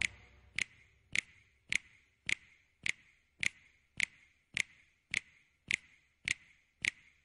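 Clock ticking: even, sharp ticks a little under two a second, with silence between them.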